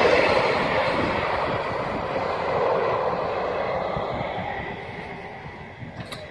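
Class 156 diesel multiple unit running over a level crossing and away, its rumble fading steadily into the distance. A brief click comes near the end.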